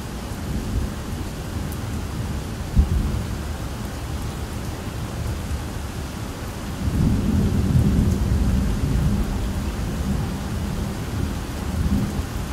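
Thunderstorm: steady rain falling, with a sharp thunder crack about three seconds in, then a long low rumble of thunder rolling from about halfway through until near the end.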